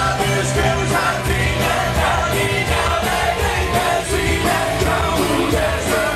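Loud rock music with a lead singer over electric guitars and a pulsing bass and drum beat.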